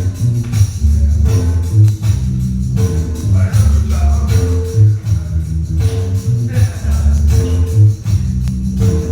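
Dance music played loud over a sonidero sound system, with a heavy repeating bass line and a steady beat.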